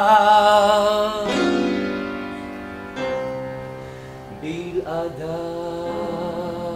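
A man's sung note with vibrato over piano breaks off about a second in, then two piano chords ring out and fade. Near the end a voice slides up into another long held note with vibrato.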